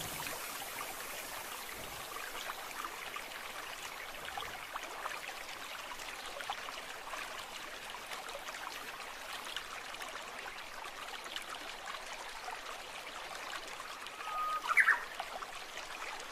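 Steady running, trickling water. A single short, high-pitched sound with a quick upward sweep cuts in near the end and is the loudest thing heard.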